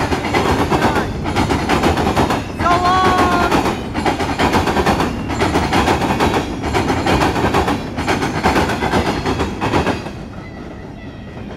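Freight train of steel-coil cars rolling past close by, its wheels clattering rapidly over rail joints and crossing track. A brief high-pitched wheel squeal comes about three seconds in. The clatter drops off sharply about ten seconds in.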